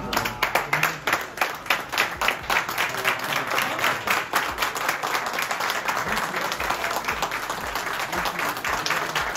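A crowd applauding with dense, steady clapping, greeting the winning finish of a professional golf tournament.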